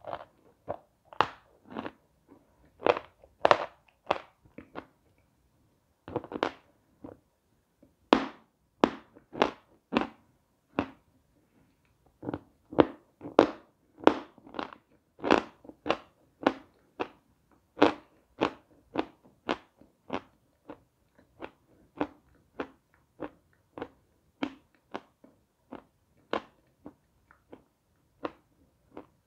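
Close-up crunchy chewing of a lump of Lisichansky edible chalk: sharp crunches, irregular at first, settling into a steady chewing rhythm of about two crunches a second from about eight seconds in.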